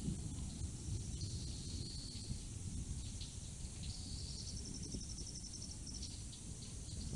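Insects chirping in short high trills, one of them a fast, evenly pulsing trill in the middle, over a steady low rumbling noise.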